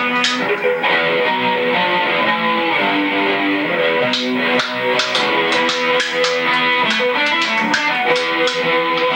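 Electric guitar playing a stepping single-note melodic line over drums with frequent cymbal strikes: a 1980s heavy-metal band jamming.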